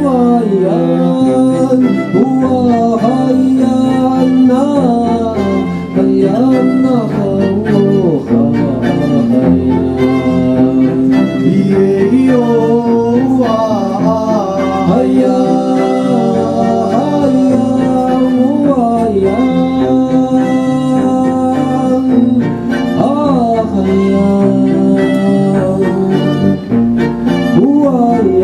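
Live acoustic song played by violin, cello and double bass, with a voice singing over the strings.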